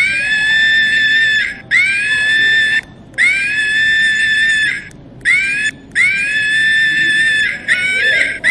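Chimpanzee screaming: a run of about six long, shrill screams, each rising at its start and then held, with short breaks between them and a wavering scream near the end.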